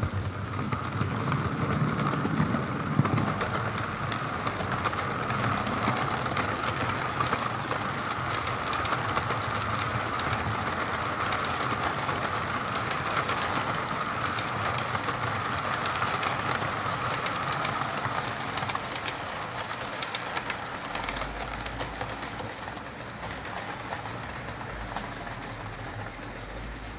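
Model train rolling past on the layout track: a steady whine with fast clicking of wheels on the rails, loudest in the first few seconds and fading over the last several seconds as it moves away.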